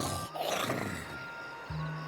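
A cartoon duck character's voiced snoring, with background music underneath.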